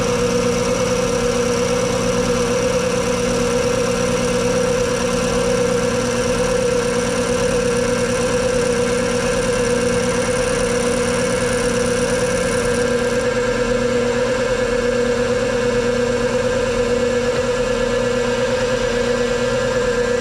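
Milling machine running steadily, milling a steel gib bar held in vices. The steady whine holds its pitch, and about two-thirds of the way through some of its higher and lower notes drop away.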